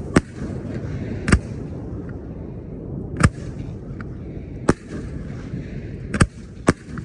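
Aerial fireworks bursting: six sharp bangs at uneven intervals, the last two coming close together near the end, over a steady low background noise.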